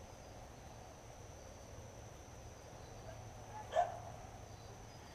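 Quiet outdoor background with a faint, steady high-pitched whine, and one brief soft sound a little under four seconds in.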